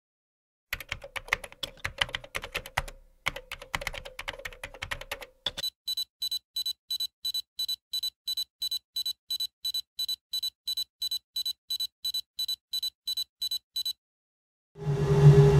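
Two bursts of rapid, dense clicking like fast typing, then a steady electronic beeping, about three short beeps a second for roughly eight seconds. Near the end a loud low drone comes in.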